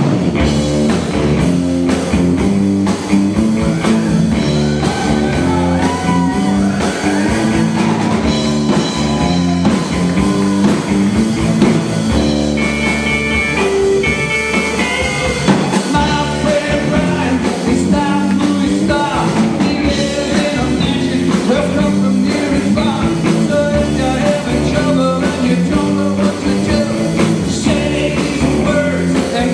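Live garage-rock band playing loudly: electric guitars and a drum kit, with a vocalist singing over them.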